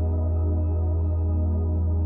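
Ambient new-age music: a steady low drone under soft, sustained tones, with no beat.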